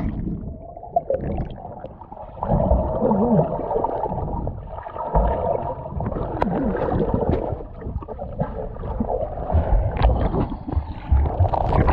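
Lake water gurgling and sloshing, muffled, as heard by a camera at or under the water's surface.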